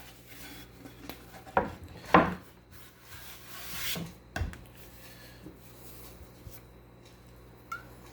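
Bamboo cutting board being handled and knocked against a hard surface a few times, with a towel scrubbing oil into the wood in between.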